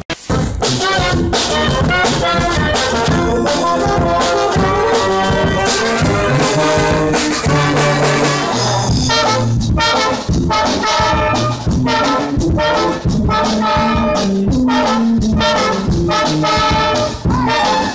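Street brass band playing a lively tune with a steady beat: trumpets, trombones, clarinet, saxophone and sousaphone together. The music cuts in abruptly at the start.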